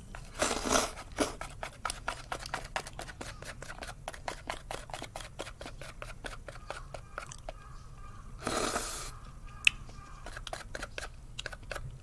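Close-up eating of natto with chopsticks: a steady run of small sticky clicks and smacks from the chopsticks working the natto and from the mouth, several a second. Two short hissy rushes of air stand out, one about half a second in and one about two-thirds of the way through.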